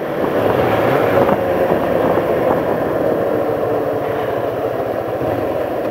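Kawasaki Ninja 500 parallel-twin engine running steadily at road speed, mixed with the even rush of wind and road noise while riding.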